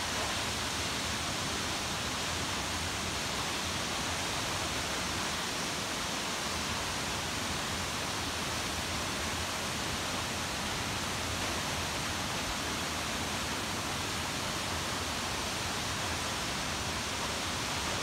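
Senrigataki waterfall's falling water making a steady, unbroken rush.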